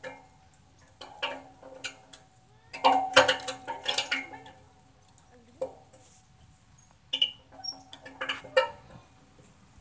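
Metal swing chains clinking and rattling in short bursts as a playground swing goes back and forth, loudest about three seconds in and again near the end.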